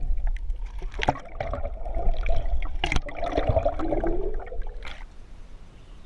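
Water heard through a camera held underwater: muffled gurgling and sloshing with two sharp knocks and a wavering hum that dips in pitch and rises again. The sound drops away about five seconds in.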